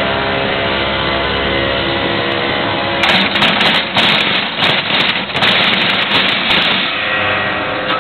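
Excavator's diesel engine running steadily, then from about three seconds in a loud, harsh rattling noise full of rapid crackles for about four seconds over the engine, easing near the end.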